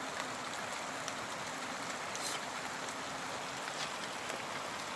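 Heavy rain falling steadily, an even hiss of rain with no break.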